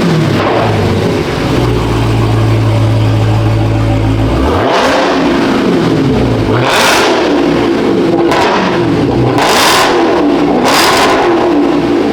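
The supercharged 6.2-litre V8 of a 2023 Dodge Charger SRT Hellcat Widebody Jailbreak running steady for the first few seconds, then given repeated throttle blips, its pitch rising and falling several times, with four short rushes of noise in the second half as the car is driven slowly up onto a frame machine.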